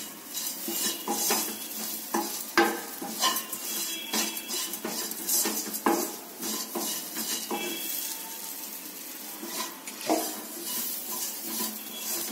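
Wooden spatula stirring and scraping bitter gourd pieces and masala around a non-stick kadai. The mixture sizzles steadily as it fries, with irregular knocks of the spatula against the pan.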